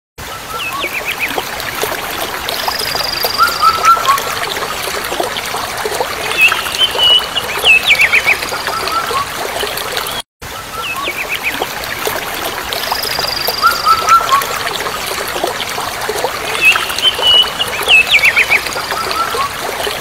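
Steady hiss of flowing, splashing water, with small birds chirping and whistling over it. The same short stretch of water and birdsong plays twice, with a brief dropout a little past halfway.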